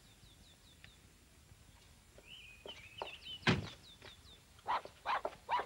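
Small birds chirping in short falling notes and a brief warble. A car door, the 1960s Mini's, shuts once with a loud thunk about three and a half seconds in, and a few short sharp knocks follow near the end.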